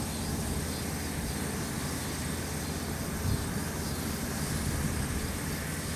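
Tractor engine running steadily while it pulls a hay rake through the field, heard as a continuous low rumble.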